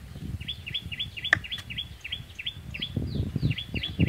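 A bird repeating a short chirp over and over, about four a second, while a knife cuts and taps on a wooden board, giving light irregular knocks and a couple of sharp clicks.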